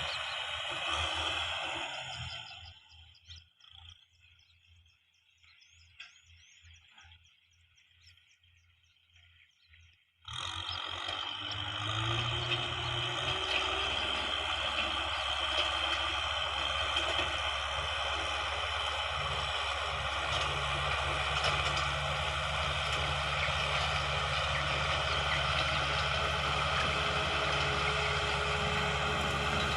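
Heavy farm machinery engine running steadily with mechanical noise. It fades out after about two seconds into a quiet stretch with faint high chirps, then comes back abruptly about ten seconds in and runs on steadily.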